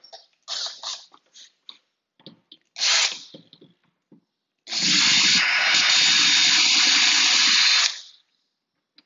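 Power drill running on a door lockset's screws: a short trigger pull about three seconds in, then a steady run of about three seconds. Before it, some clicking and knocking of the lock hardware being handled.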